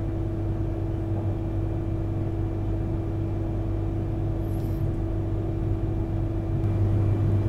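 Running noise of an E3 series Shinkansen heard inside the passenger cabin: a steady low rumble with a constant hum over it, growing a little louder near the end.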